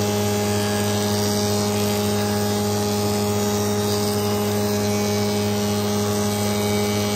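Spindle moulder running with a Steff 2034 power feeder driving a wooden board past the cutter: a steady motor hum with an even rush of cutting over it.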